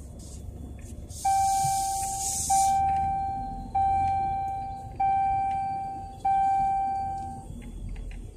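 A car's warning chime dinging five times at an even pace, about one and a quarter seconds apart, each ding a clear tone that fades away, over a low steady rumble. A short hiss comes just before the first ding.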